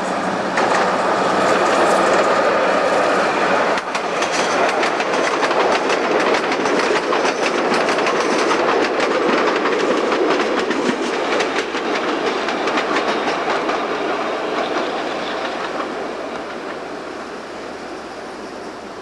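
Two-car Y7 diesel railbus passing, with a steady engine-and-rail noise and rapid clicking of wheels over rail joints through the middle; it is loudest about two seconds in and fades toward the end.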